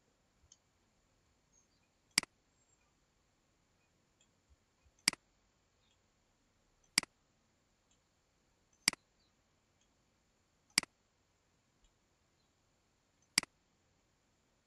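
Computer mouse clicks, six single sharp clicks spaced about two seconds apart, with a few faint ticks between them.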